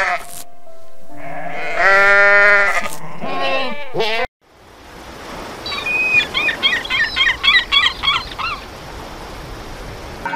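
A sheep bleating in long, wavering calls for the first few seconds. After a sudden cut, gulls call in a quick string of squawks over the steady wash of surf.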